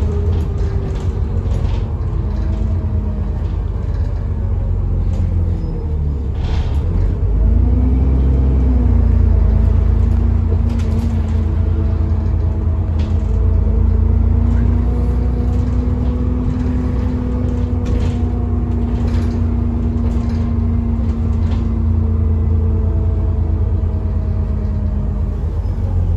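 Interior sound of an Alexander Dennis Enviro400 double-decker bus on the move: a steady low engine rumble with a humming tone that rises about seven seconds in, as the bus picks up speed, and then holds. A few short rattles from the saloon sound over it.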